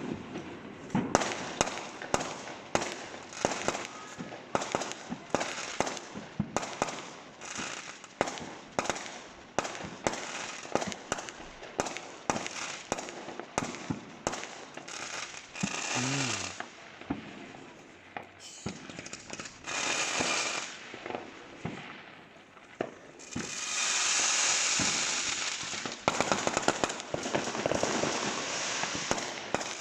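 New Year fireworks going off: a steady run of sharp bangs, about one or two a second, with a few longer stretches of crackling hiss from bursting shells, the longest a little past two-thirds of the way through.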